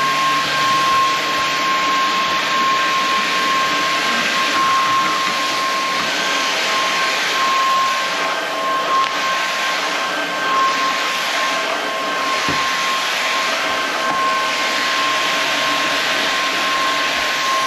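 Inse S610 cordless stick vacuum running on its high setting: a steady whine over rushing air, with a brief knock about twelve seconds in.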